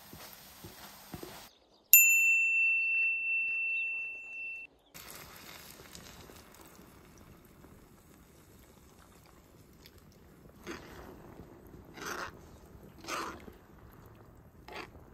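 A single clear bell-like ding about two seconds in, the loudest sound, fading away over nearly three seconds. Around it, quiet cooking sounds from a cast-iron skillet: a spoon stirring fried potatoes at first, then creamer poured in and a few short scrapes of a spoon through it near the end.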